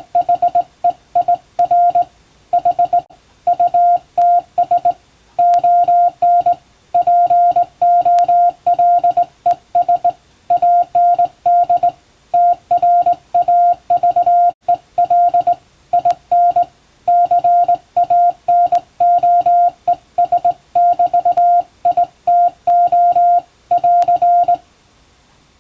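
Morse code sent by hand on a straight key: a steady beep keyed on and off in short dots and longer dashes, at an uneven hand-sent rhythm. It stops about a second before the end.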